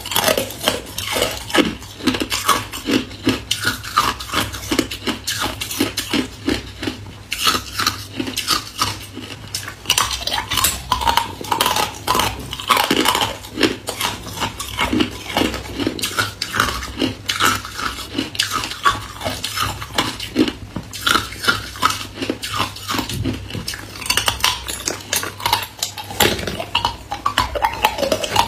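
A person biting and chewing thin, hard ice broken from an ice-cube tray: a dense, irregular run of crisp crunches and cracks, several a second.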